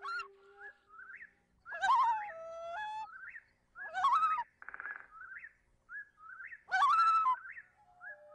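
Bird calls: short rising chirps repeated about once a second, with three louder warbling whistles and a brief buzzy trill about five seconds in.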